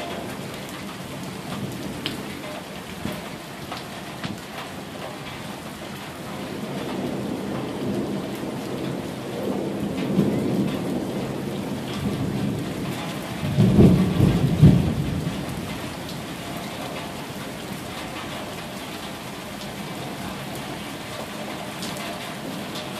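Steady rain falling on a wet street, with thunder rumbling. The thunder builds from about a quarter of the way in and is loudest just past the middle, then fades back under the rain.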